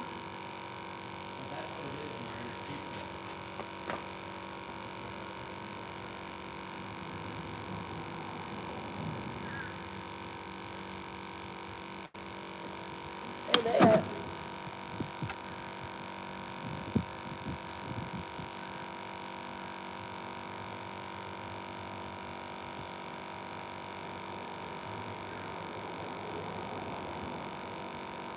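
A steady hum made of several fixed tones. About 14 seconds in comes a brief, loud call with a bending pitch, followed by a few faint knocks.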